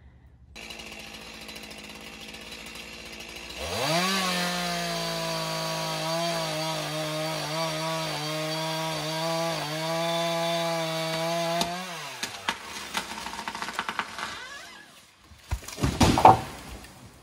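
Chainsaw idling, then revved up about three and a half seconds in and held at full throttle through a felling cut, its pitch dipping now and then as it bites, until it stops about twelve seconds in. A run of cracks follows, then the tree comes down with a loud crash near the end, the loudest sound.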